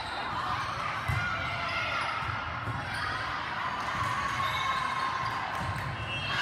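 Volleyball players' shoes squeaking and thudding on an indoor court during and after a rally, with voices in the echoing hall; a sharper thump about a second in.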